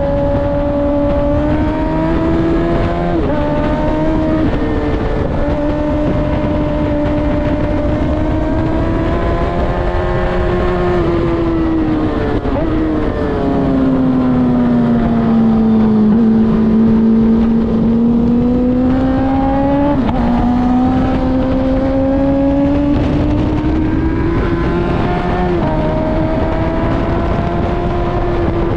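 Race engine heard on board at speed, its pitch climbing and then stepping abruptly at gear changes. Near the middle it falls away into a long low stretch, as if slowing for a corner, then climbs again. A steady rushing noise runs underneath.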